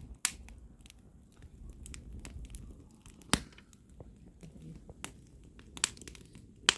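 Firewood burning in a homemade tin-can fire pit, crackling with irregular sharp pops and snaps, a few of them louder than the rest.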